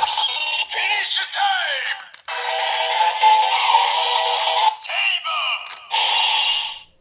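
Electronic sound effects from a Kamen Rider Zi-O DX toy sword playing through its small speaker after a Ridewatch is read: a recorded voice calling and singing over a jingle, in several phrases, ending shortly before the end.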